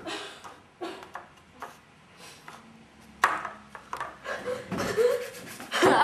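Irregular scratchy strokes of a drawing or painting tool rubbing across paper, with a short voiced sound near the end.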